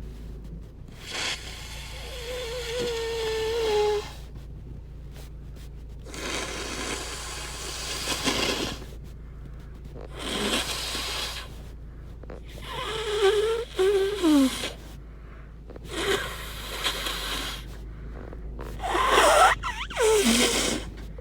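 A person congested with a cold blowing their nose hard about six times, each blow lasting a second or two. Several of the blows have a honking, whistling tone from the blocked nose.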